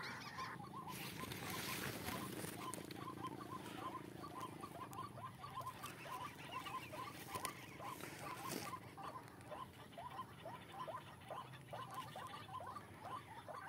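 Faint recorded bird calls played through a hunting caller speaker: a long, rapid series of short chirps, all at about the same pitch.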